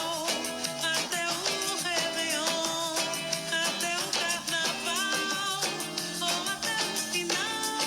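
A Brazilian song in Portuguese playing, with a steady beat and a melodic line of pitched notes.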